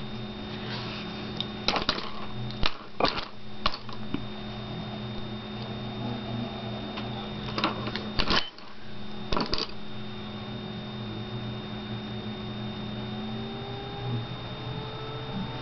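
Scattered light clicks and knocks of paintbrushes being handled, picked up and set down among other brushes, in two clusters, over a steady electrical hum.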